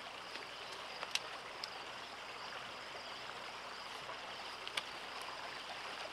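A stream running over rocks, a steady rush of water, with a few brief sharp clicks on top of it.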